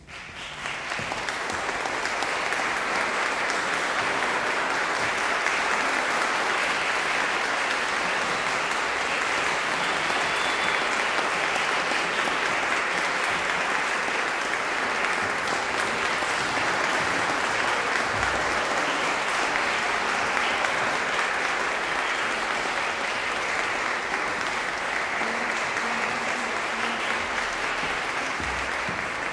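Audience applauding. The clapping swells within the first second, holds steady, and eases slightly near the end.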